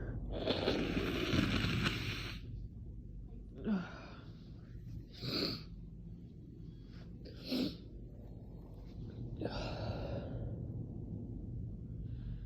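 A person in an allergy attack sneezing and breathing hard. A long, noisy breath comes first, then three short, sharp breaths a couple of seconds apart, false starts to a sneeze, and later a heavy breath out.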